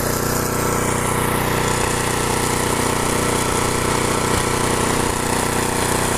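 Snow thrower's small gasoline engine running steadily at constant speed.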